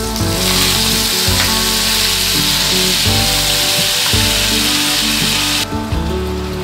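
Food sizzling in a hot frying pan: a loud, even hiss that starts just after the beginning and cuts off suddenly near the end, over background music.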